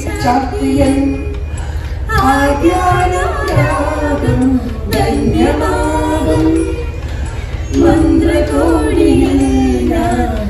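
A man and a woman singing a song together into a handheld microphone, in phrases with short breaks between them and some long held notes, over a steady low hum.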